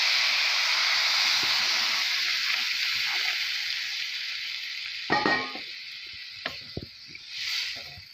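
Water poured into a hot wok of spices frying in oil sizzles loudly, the hiss slowly dying away as the pan cools. About five seconds in come a few knocks and scrapes of stirring in the pan.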